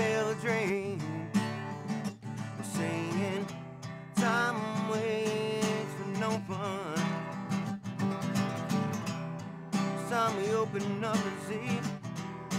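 Background music: strummed acoustic guitar with a wavering lead melody over it.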